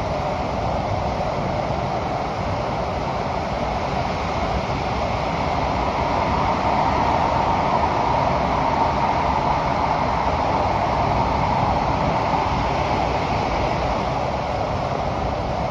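Cabin noise inside a Kawasaki & CRRC Sifang CT251 metro train car while it runs along the line: a steady rumble and rush of the wheels on the rails. It grows a little louder through the middle and then eases slightly.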